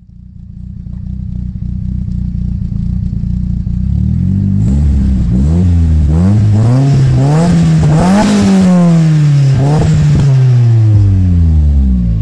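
Nissan Silvia S15 Spec R's turbocharged SR20DET four-cylinder engine idling, then revved in a series of blips that rise and fall in pitch, the highest about eight seconds in, before it drops back toward idle near the end.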